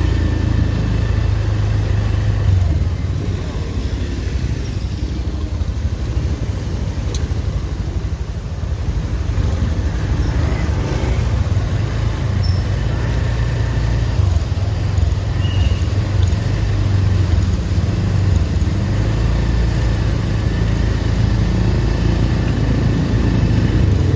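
Steady low rumble of road vehicles, with no telolet horn sounding.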